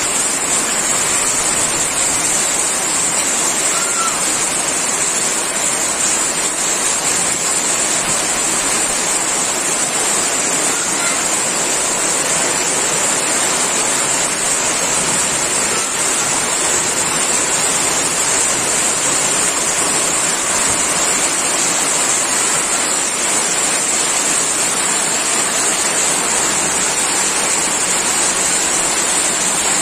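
Heavy rain pouring down in a steady, unbroken roar, drumming on corrugated metal roofs.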